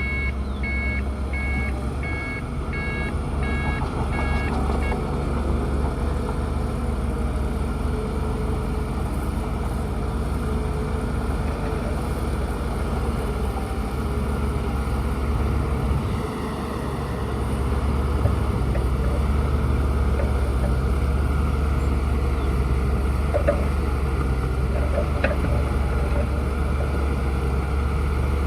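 Bulldozer's diesel engine running steadily, getting louder about seventeen seconds in. A reversing alarm beeps repeatedly during the first five seconds, then stops.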